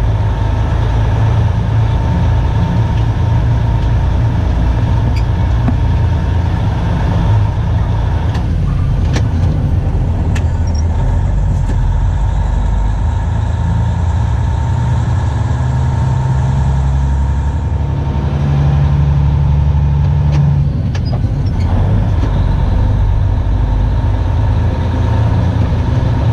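Diesel engine of a loaded potato truck running steadily on the road, a loud low drone whose pitch changes a couple of times.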